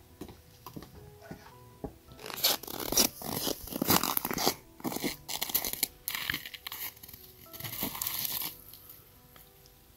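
Dry straw rustling, crunching and tearing as it is pulled by hand from a haystack, in several bursts from about two seconds in, the loudest about two to five seconds in, with quiet background music.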